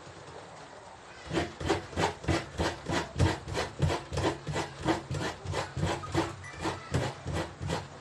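Fresh coconut meat being scraped out of a half-shell on a grater: steady rasping strokes about three a second, starting about a second in.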